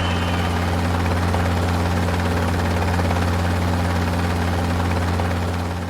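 Multirotor drone's propellers running with a steady, even-pitched low hum and rushing noise.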